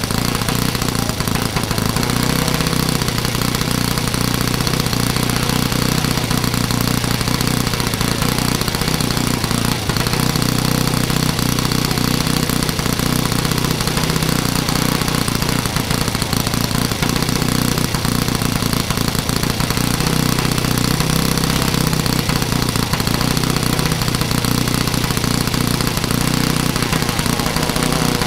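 Saito FA-82 four-stroke glow model-aircraft engine running steadily with its propeller turning, during break-in on its first tank of fuel. The speed holds even throughout.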